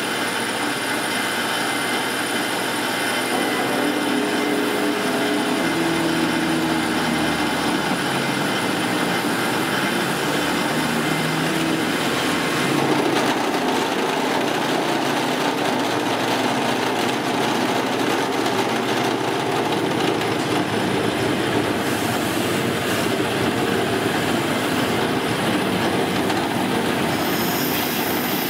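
Harbor Freight mill-drill converted to CNC, its spindle running at 850 RPM while a 3/8-inch two-flute end mill cuts a helical path into half-inch hot-rolled steel: steady motor, gear and cutting noise, with shifting tones during the first several seconds. Near the end, a hiss of compressed air from a blow gun starts up at the cut.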